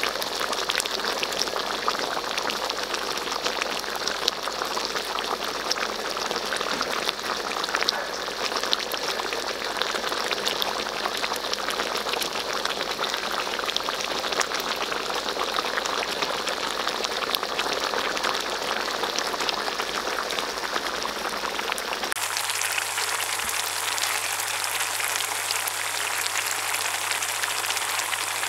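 Thick jengkol stew simmering in an aluminium wok, its sauce bubbling with a steady dense crackle of small pops. Near the end the sound shifts and a low steady hum joins in.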